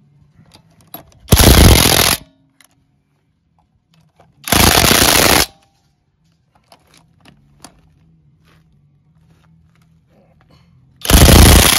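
SeeSii WH-750 1/2-inch cordless impact wrench hammering lug nuts tight in three bursts of about a second each: about a second in, near the middle, and again at the end. Light clicks and clatter of the socket and nuts between the bursts.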